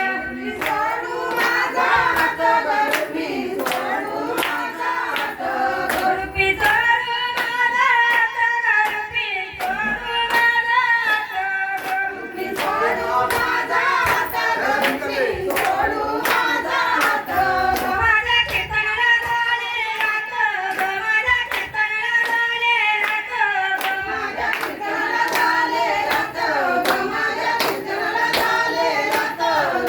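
A woman singing a traditional Marathi Ganpati devotional song, with hand claps keeping a steady beat about twice a second.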